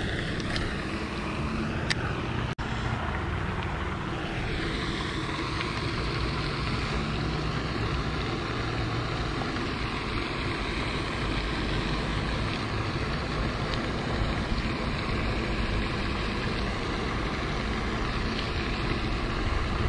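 Steady wind noise buffeting the microphone, deep and fluttering.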